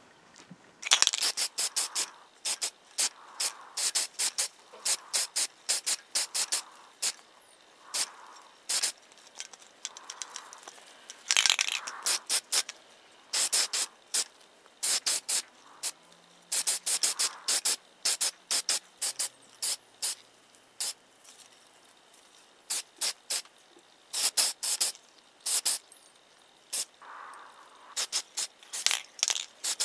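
Aerosol spray paint can sprayed in many short hisses, several a second in clusters, with a few longer passes, as the drill's parts are painted.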